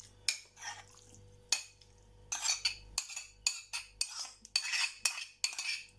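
A spoon scraping and clinking against a plate as canned stewed meat is scraped off into an enamel pot of pasta. A few separate clinks at first, then quick repeated scrapes and clinks from about two seconds in.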